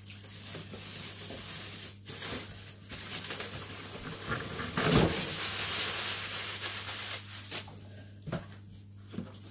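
Packaging rustling and scraping as an air fryer is pulled out of its box, with a thump about five seconds in.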